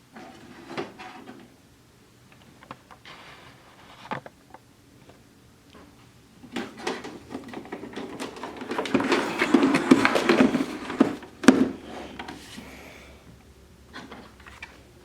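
Scattered clicks and knocks, then several seconds of dense clattering, loudest around the middle, before it dies back to a few clicks.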